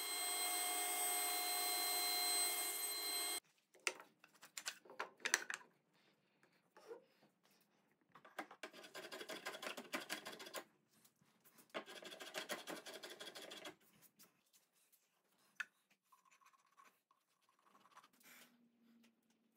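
Table saw running steadily with a constant whine, cut off abruptly about three and a half seconds in. After a few knocks of wood being handled, sandpaper rubs over the wooden box in two stretches of a couple of seconds each, followed by faint handling taps.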